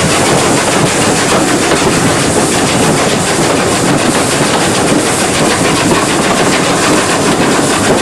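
Train running along a heritage railway line: a steady, loud noise of wheels on the rails.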